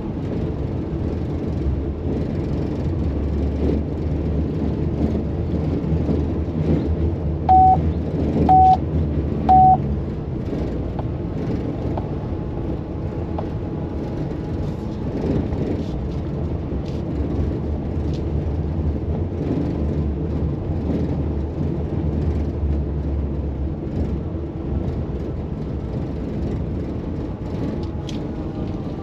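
Cab noise of a Maxus e-Deliver 7 electric van driving over cobblestones at about 35 km/h: steady tyre rumble with many small rattles, which the driver puts down to poorly fitted panels in the rear cargo box. Three short beeps a second apart about eight seconds in.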